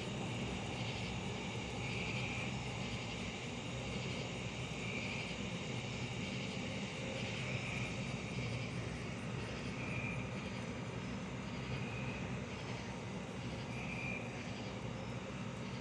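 Steady low hum of outdoor night background, with a faint high chirp repeating every second or two.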